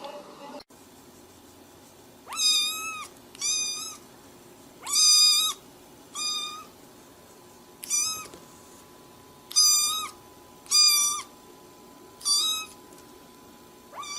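Cat meowing over and over: nine short, high-pitched meows about a second and a half apart.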